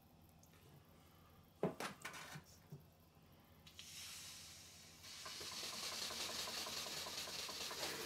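A few sharp knocks about two seconds in, then a hiss of steam that sets in about four seconds in. From about five seconds in it becomes a steady, louder hiss with a fast beat as a model steam beam engine starts running.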